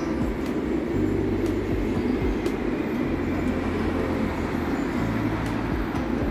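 Steady rumble of city road traffic around an open-air tram and subway stop, even and unbroken, with no single event standing out.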